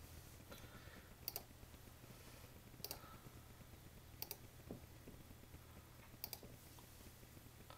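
Faint, sharp clicks from operating a computer by hand, about four of them spaced a second or two apart, over near-silent room tone.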